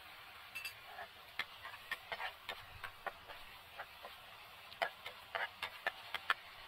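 Metal spatula scraping and knocking against a non-stick frying pan while stirring and turning food, in quick irregular strokes that grow louder near the end. A faint steady sizzle of frying sits underneath.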